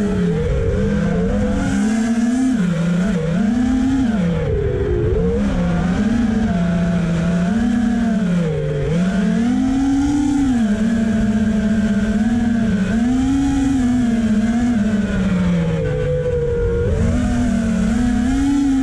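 FPV quadcopter's motors and propellers whining, the pitch rising and falling continuously as the throttle changes.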